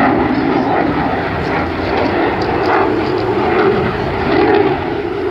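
Jet noise from a US F-16 fighter's single engine in flight at a distance: a steady loud rumble that swells and eases slightly.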